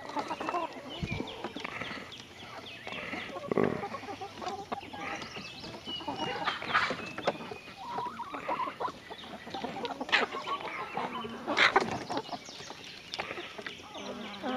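A flock of chickens, White Rock hens among them, clucking in short, scattered calls while they forage, with a few louder, sharper sounds every few seconds.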